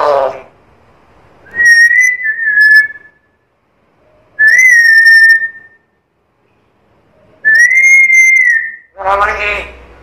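Black-capped lory whistling: three long, clear whistles of about a second and a half each, held at a nearly even pitch with a slight rise and fall, with gaps between them. A brief speech-like sound follows near the end.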